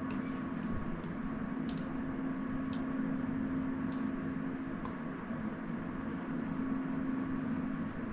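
A steady machine hum with a few sharp, single clicks of a computer mouse spaced a second or so apart.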